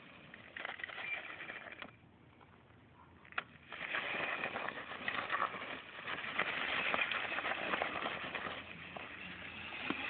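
A child's small dirt bike riding close by on a dirt lot, heard as a rough noise through a phone microphone. It grows louder from about four seconds in as the bike comes near. There is a sharp click just before that.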